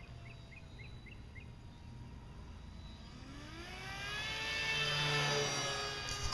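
Electric brushless motor and propeller of an RC plane, a Hobby King FPV 168, whining as it flies in: from about three seconds in the whine rises in pitch and grows louder, loudest near five seconds.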